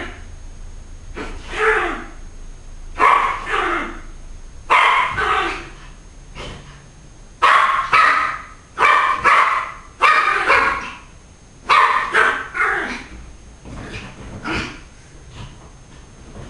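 Small dog barking in repeated bursts of two or three quick barks, the barking weakening over the last few seconds.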